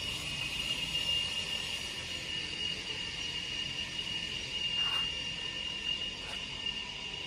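Steady machine noise with a constant high-pitched whine over a low hiss and rumble.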